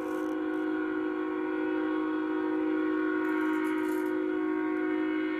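Union Pacific locomotive's five-chime Nathan K5HL air horn sounding one long, steady blast of several notes at once, heard through a live webcam stream played on computer speakers.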